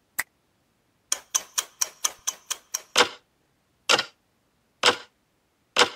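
A run of sharp ticks, quick at first at about four a second, then slowing to about one a second and growing stronger, like a clock ticking.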